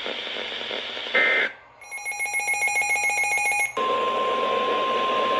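Weather-radio alert signalling over static. A short data-tone burst comes a little over a second in, followed by about two seconds of rapidly pulsing electronic data tones. Just before four seconds in, the steady single-pitch 1050 Hz NOAA Weather Radio warning alarm tone starts; it signals that a new warning is about to be read.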